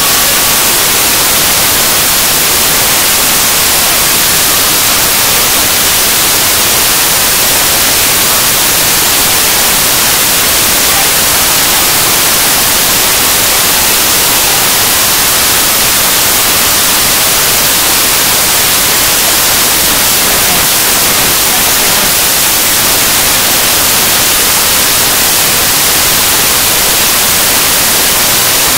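Loud, steady hiss of static, like white noise, brightest in the high frequencies and unchanging throughout.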